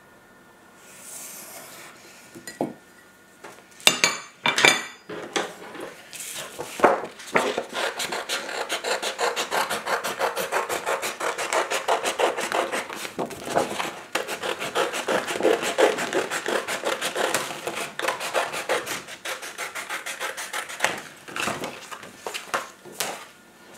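Scissors cutting through a sheet of paper: a long, dense run of rasping snips starting several seconds in and stopping near the end. Before it come faint pencil scratching and a few sharp knocks.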